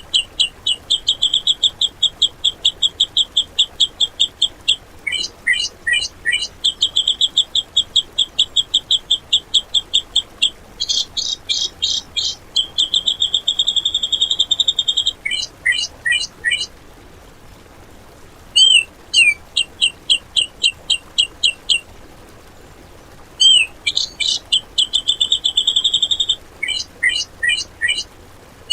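Grey-cheeked bulbul (cucak jenggot) singing long, fast runs of short, sharp, high whistled notes, several a second, in the rapid shot-like 'tembakan' delivery. The runs break off twice briefly, in the second half.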